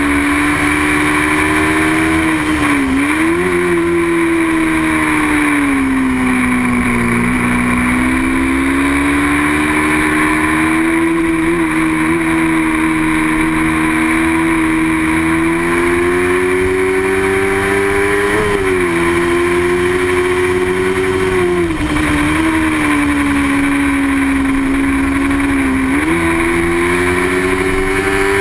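Racing motorcycle engine held at high revs, its pitch climbing slowly and then dropping sharply and recovering several times as it changes gear or brakes and accelerates again. Wind noise rushes underneath.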